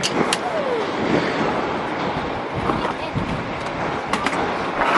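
Steady street and vehicle noise beside a waiting city bus, with scattered clicks and a few brief voices.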